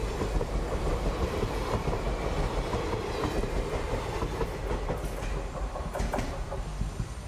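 Indian Railways passenger coaches rushing past at speed, their wheels clattering over the rail joints in a steady rumble. There are a couple of sharper clacks about five and six seconds in, and the sound eases off slightly near the end.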